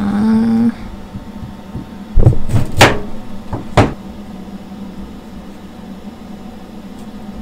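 A kitchen knife knocking on a cutting board, four or five sharp knocks about two to four seconds in, while frozen ginger is being cut and scraped. A short pitched tone sounds at the start.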